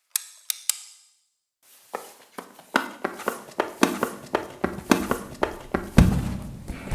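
Foley effects for a dinosaur: three sharp clicks, then a rapid series of knocks, about three to four a second and growing louder, ending in one heavy low thump that rings on.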